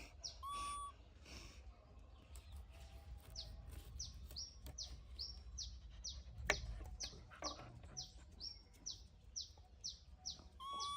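A bird chirping over and over: short high notes that fall in pitch, about two or three a second. A brief steady tone sounds just after the start, and there is a single sharp click about six and a half seconds in.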